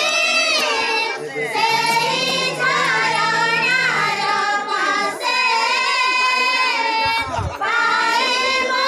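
High voices singing a hymn together in a steady, continuous melody, with a low steady hum beneath the singing for the first few seconds.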